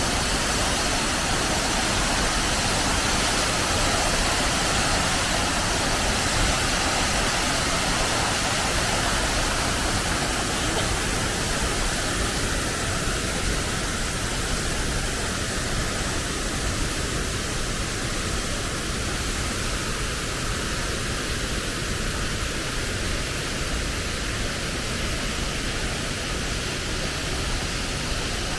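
Wachirathan Waterfall's falling water: a steady, even rushing of water, a little quieter in the second half.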